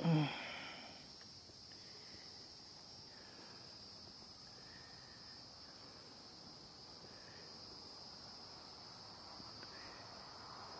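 Faint, steady chorus of insects: a continuous high-pitched buzzing trill that does not change.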